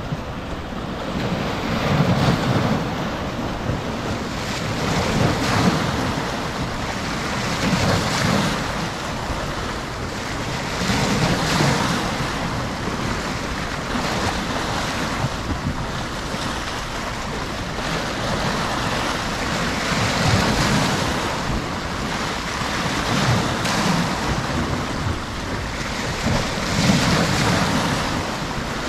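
Sea waves breaking and washing over shoreline rocks, a surge of foaming water every few seconds between steadier wash.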